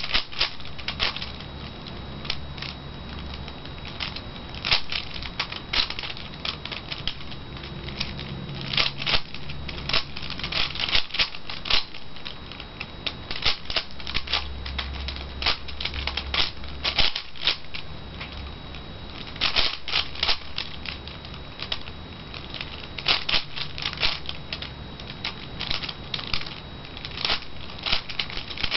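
V-Cube 5x5 plastic puzzle cube being turned by hand mid-solve: a quick, irregular clatter of plastic clicks as the layers snap round.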